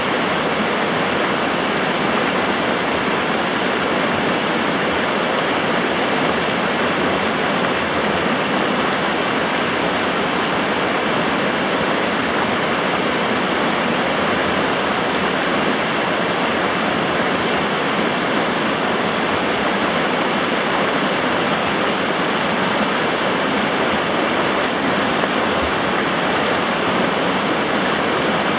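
Steady rushing of the Firehole River's fast current, an even unbroken water noise.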